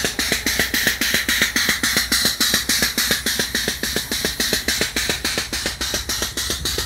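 Air-operated grease pump clattering in a rapid, even rattle of about seven strokes a second as it forces grease into the truck's spring and shackle pins.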